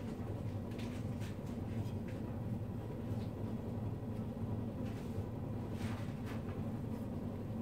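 Steady low hum with a few faint, light clicks and taps scattered through, as of small parts being handled on the blower case.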